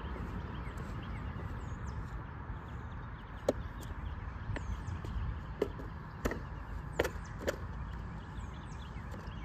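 A skateboard knocking on concrete as it is handled and set down on the lip of a skate bowl: about six sharp, separate knocks over a few seconds, the loudest two half a second apart near the end, over a steady outdoor background hum.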